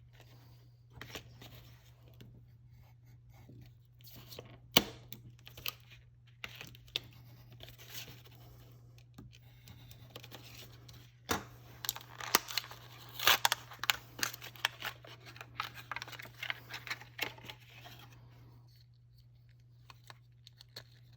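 Packaging being torn open and handled: scattered tearing and crinkling with a few sharp clicks, busiest a little past the middle.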